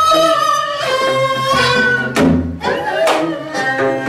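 Korean traditional ensemble music: long wavering melodic notes from wind and bowed strings over plucked gayageum zithers, with drum strokes about a second apart in a gutgeori rhythm.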